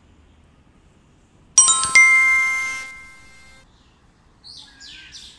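A two-note bell chime: two bright strikes about half a second apart, each ringing out and fading over about a second and a half.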